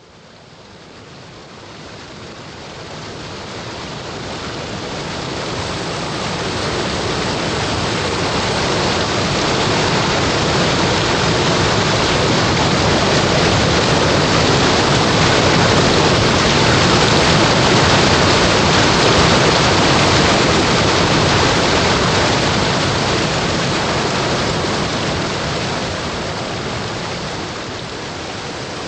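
Fast stream water rushing and splashing over rocks in a cascade, a steady rushing that fades in over the first several seconds and is loudest in the middle.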